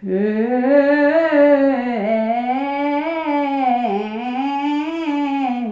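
A woman singing five-note scales up and down, three in a row without a break, as a vocal-colour exercise that moves through chest, mouth, nasal and head resonance.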